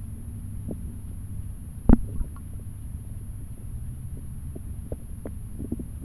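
Muffled low rumble of stream water heard through a cheap camera's microphone sealed in its waterproof housing underwater, with scattered small clicks and one sharp knock about two seconds in.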